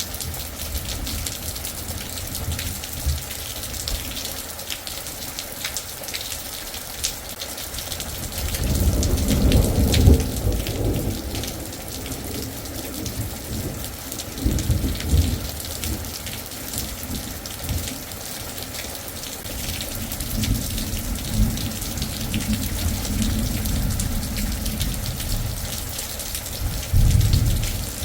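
Rain falling steadily through a thunderstorm, with several low rolls of thunder rumbling in and out; the loudest comes about ten seconds in and another near the end.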